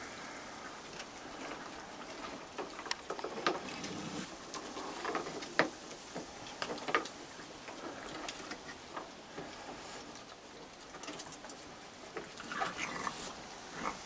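Group of raccoons feeding on a wooden deck: scattered small clicks, crunches and scrapes of cookies being eaten and claws on the boards. A few brief raccoon vocal noises come through, a small cluster near the end.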